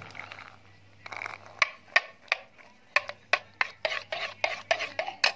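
A steel spoon stirring pomegranate seeds into thin yogurt in a bowl, clinking against the bowl about a dozen times, the clinks coming faster toward the end.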